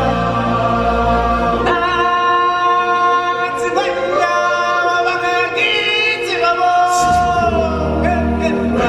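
Live stage-show singing: a lead voice with a choir, over band accompaniment. The low bass backing drops out about two seconds in, leaving mostly the voices, and comes back about seven seconds in.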